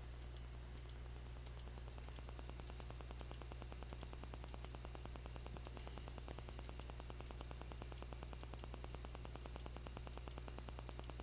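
Faint computer mouse clicks, a few a second and often in quick pairs, as frames of an image loop are stepped through one by one, over a steady low electrical hum.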